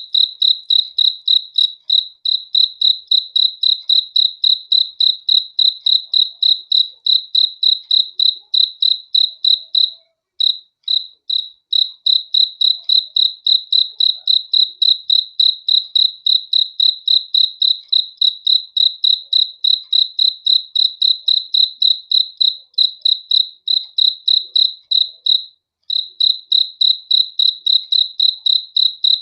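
A cricket chirping in a fast, even rhythm of about four to five high chirps a second, all on one pitch. The chirping breaks off briefly about ten seconds in and again near the end.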